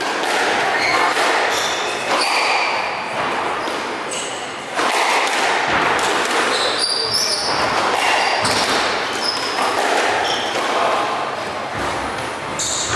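Squash rally: the ball struck by rackets and hitting the walls in repeated sharp knocks, with shoes squeaking on the wooden court floor.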